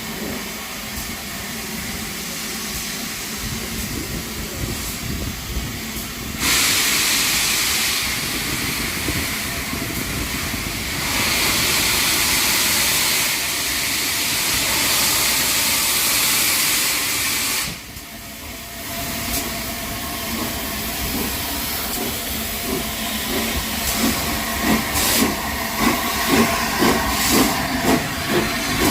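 Three-cylinder Peppercorn A1 steam locomotive 60163 Tornado: a loud, steady hiss of escaping steam starts about six seconds in and cuts off abruptly some eleven seconds later. Near the end the exhaust beats start up and quicken as the engine pulls away.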